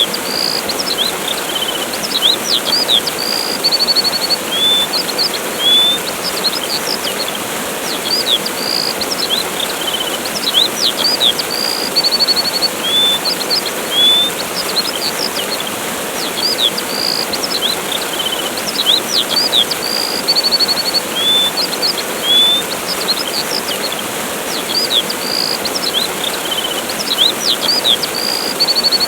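A waterfall's steady rushing with small birds chirping over it. The birds give short high chirps, quick trills and upward-sweeping whistles, again and again.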